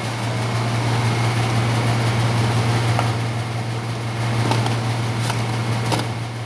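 Refrigeration compressor running with a steady low hum, with a few faint clicks in the second half.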